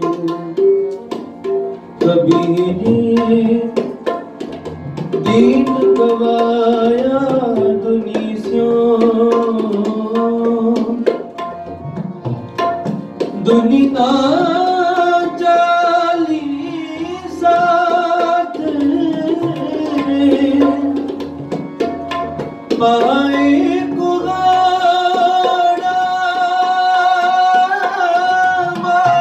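A voice singing a devotional song, accompanied by steady tabla strokes.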